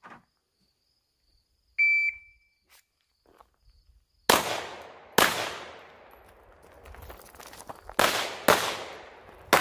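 A shot timer gives one short high beep as the start signal, and about two and a half seconds later a pistol fires: two shots about a second apart, a pause of nearly three seconds, then two quick shots and another near the end, each ringing out in a long echo.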